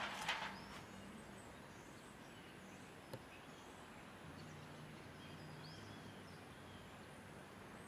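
Quiet outdoor ambience: a faint even hiss with a few faint high bird chirps. A short louder sound at the very start, a single click about three seconds in, and a low steady hum from about four seconds in.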